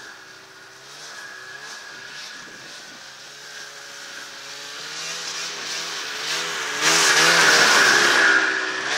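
1999 Ski-Doo Summit 600 two-stroke snowmobile running across snow, its engine pitch rising and falling with the throttle. It grows louder and is loudest from about seven seconds in, with a rush of track and snow noise as it comes close, then begins to fade.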